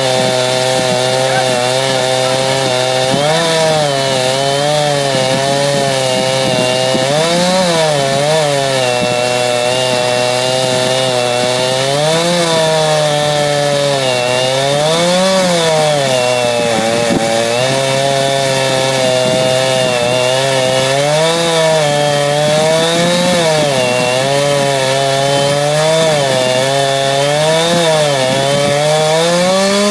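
Chainsaw ripping lengthwise through a log, running steadily under load. Its engine pitch dips and recovers again and again as the chain bites, then rises right at the end as the load comes off.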